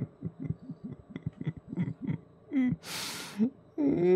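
A man chuckling softly in quick, repeated breathy laughs. About three seconds in comes a sharp hissing breath out, and a short voiced sound just before the end.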